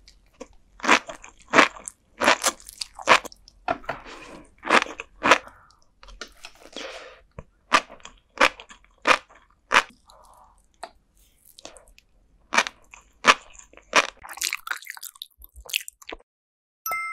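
Close-miked chewing of flying fish roe and sea grapes: sharp popping crunches in irregular runs, one or two a second, with short pauses between. A chime rings once near the end.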